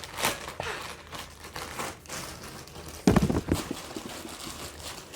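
Crinkly wrapping rustling as a stuffed toy is handled, with a short run of loud thumps about three seconds in.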